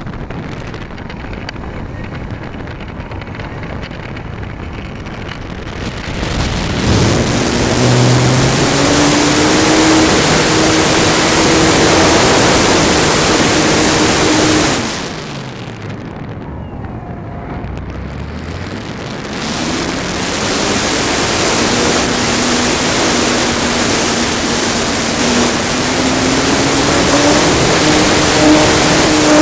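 Extreme Flight 64-inch MXS electric aerobatic RC plane's motor and propeller running under wind rush on its onboard microphone. The motor is throttled up about six seconds in. Around fifteen seconds in it is eased off, its pitch dropping and then rising again, and it is back to full power after about twenty seconds.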